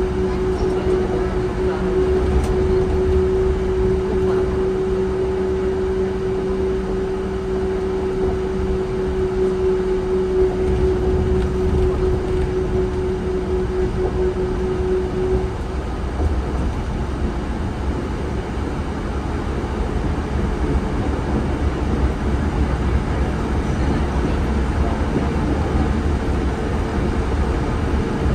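Yurikamome 7500-series rubber-tyred automated guideway train running along its guideway, with a steady rolling rumble. A held whine cuts off about halfway through, and a slightly higher steady whine comes in near the end.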